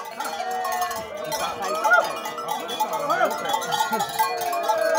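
Many cattle bells clanking together as a herd walks into a corral, mixed with men's voices calling out.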